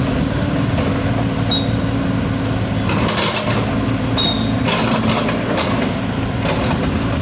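JCB backhoe's diesel engine running steadily under load, with a run of knocks and scrapes from about three seconds in as the bucket works the concrete blocks, and two short high squeaks.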